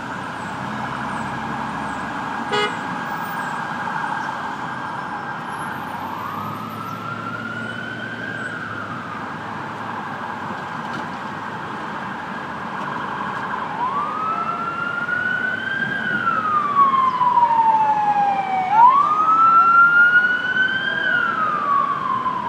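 Emergency vehicle sirens wailing in slow rising and falling sweeps, each lasting a few seconds. A steady siren tone holds under the sweeps for the first half, then the wails grow louder and are loudest near the end. A brief sharp click sounds a few seconds in.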